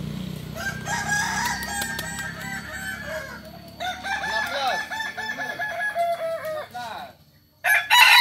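Several kukuak balenggek roosters crowing over one another, each long crow broken into a string of short rising-and-falling notes, the stepped crow that the breed is judged on. The sound cuts out suddenly near the end, then returns louder.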